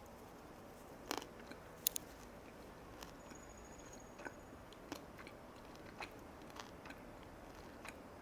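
A person chewing a bite of skate (hongeo) close to the microphone: quiet, irregular mouth sounds with sparse small clicks and crunches.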